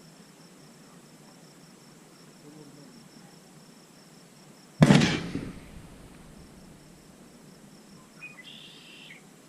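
A single gunshot about five seconds in: a sharp crack whose tail dies away within about a second. Under it runs a steady faint chirping of insects.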